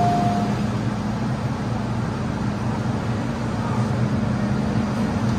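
Steady hum inside an MTR M-Train standing at a platform with its doors open, its air-conditioning and on-board equipment running. The last note of the door chime ends in the first half second.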